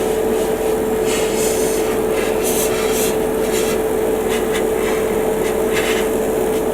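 Airbrush compressor running with a steady hum, while the airbrush gives several short hissing bursts of spray as primer is laid onto a plastic model part.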